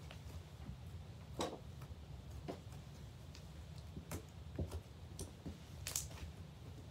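Glittery slime being kneaded and pressed by hand, giving irregular soft clicks and pops, about one a second. The sharpest pops come about a second and a half in and again near the end.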